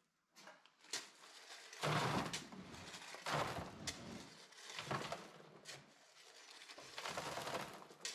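Loose gravel crunching and scraping in several irregular bursts, loudest about two seconds in, as it is worked by hand to level it.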